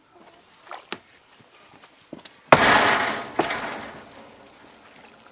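Water splashing in a plastic wash tub of soapy water as a rooster is bathed. A few small splashes and drips come first, then a sudden loud splash about halfway through that dies away over about a second and a half.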